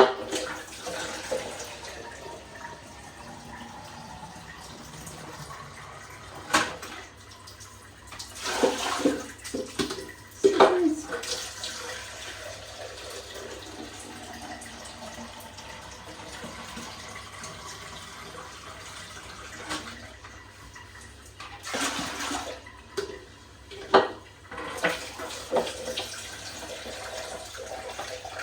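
Water running and splashing in a toilet during a repair, a steady wash of sound broken by several sharp knocks and clatters of parts being handled.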